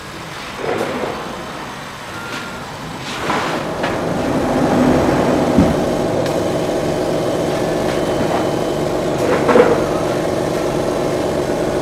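1390 CO2 laser cutting machine running as its head traces a cut through acrylic: a steady machine hum that grows louder about three to four seconds in, with a few short clicks.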